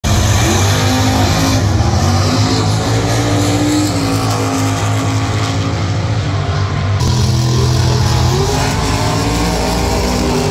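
Drag racing cars' engines running loud, a deep steady drone with the pitch climbing as an engine revs about half a second in and again about eight seconds in; the sound changes abruptly about seven seconds in.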